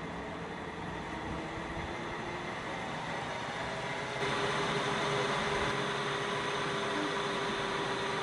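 Funicular car running along its track, a steady rumbling ride noise with a faint hum, getting louder about four seconds in.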